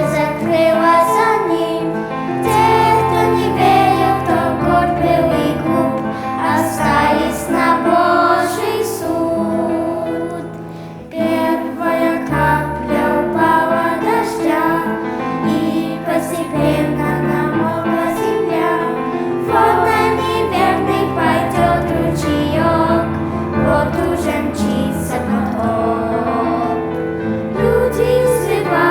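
Children singing a Russian-language song with instrumental accompaniment and a bass line, pausing briefly about eleven seconds in before carrying on.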